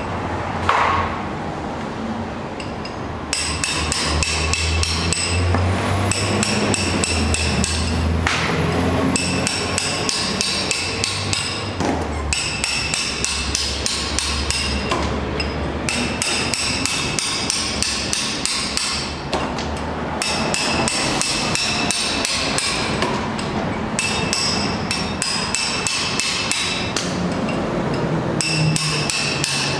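Hammer and punch driving the lifters out through the bottom of a Holden red straight-six engine block: bursts of quick, ringing metal-on-metal blows, with short pauses every few seconds.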